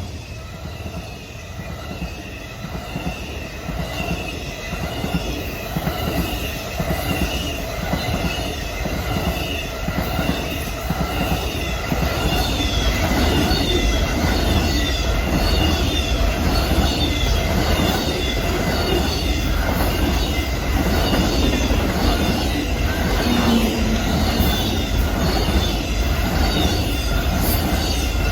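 Amtrak passenger train rolling past, its wheels clicking in a steady rhythm over rail joints over a heavy rumble. A high wavering squeal comes from the wheels on the rail, and the train grows louder about halfway through.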